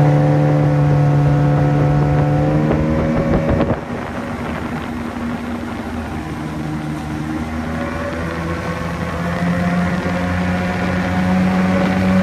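Outboard motor of an inflatable dinghy running under way, with a steady engine note. About four seconds in it throttles back with a click, then the note slowly climbs as it speeds up again.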